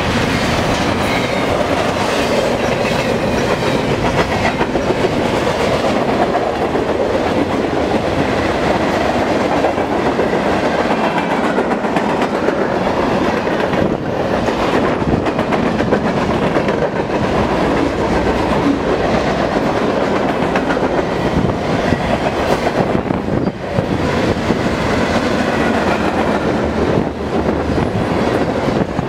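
Freight train cars rolling past close by at speed, first double-stack container cars, then boxcars and tank cars. Steel wheels on rail make a loud, steady rumble, with clicks and knocks over the rail joints and a faint wavering high whine.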